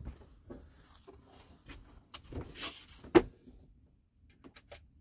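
Rustling and scraping of RV air-conditioner ductwork being handled and pushed into place, with one sharp knock about three seconds in and a few faint clicks near the end.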